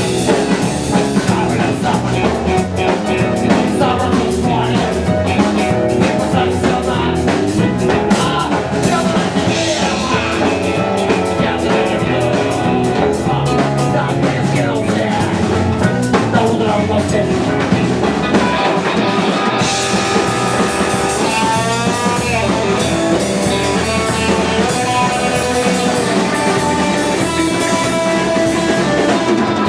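Rock music played by a band with guitar and drum kit, with a quick rising run of notes about two-thirds of the way through.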